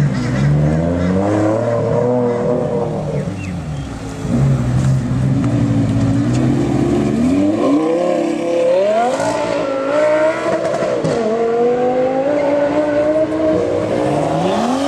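Loud sports car engine revving and accelerating, its pitch climbing and falling several times.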